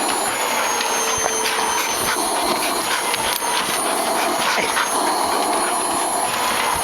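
Vacuum cleaner running steadily with a thin high whine, its nozzle being worked over a golden retriever's coat, with a few light knocks.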